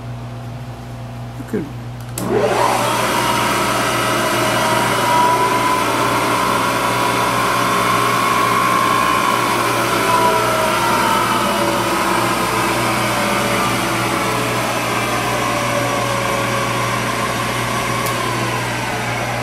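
Webb Champ CNC vertical mill's spindle motor starting up about two seconds in and then running: a steady whirring with a whine whose pitch drifts slowly up and then back down.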